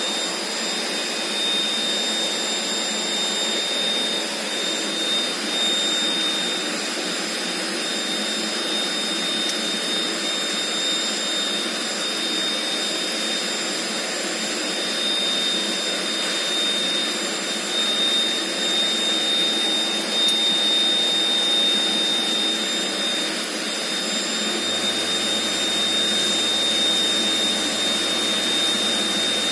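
Steady whirring of an air blower with several high-pitched whines held on one pitch, like the aeration blower that keeps a biofloc tank oxygenated.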